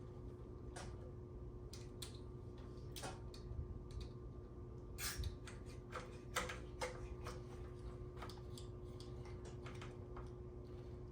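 Scattered light clicks and taps of hands and tools working the controls of a vintage Sansui amplifier during contact cleaning, over a steady low hum.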